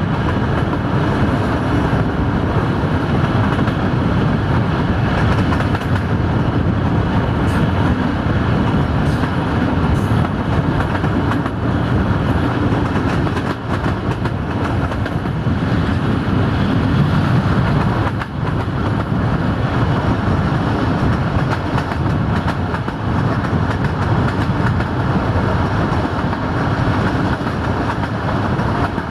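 Train in motion heard from on board a passenger train hauled by a 060-DA diesel-electric locomotive: a loud, steady rumble of wheels on track with some clicks over the rails.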